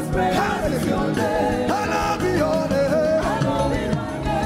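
Live gospel worship music: a male lead singer and backing singers over a band with bass guitar and keyboard, playing to a steady beat.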